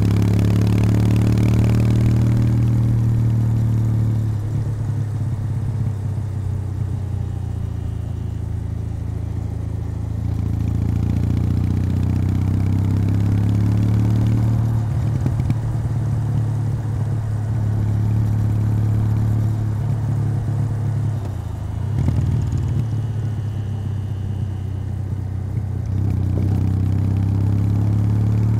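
Kawasaki W800 air-cooled parallel-twin motorcycle engine on its stock exhaust, running under way. The note drops and picks up again several times as the throttle is eased off and reopened.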